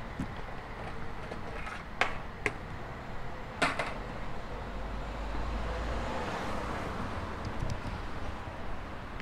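Urban street ambience: steady traffic noise with a vehicle passing by, and a few sharp clicks or knocks in the first four seconds.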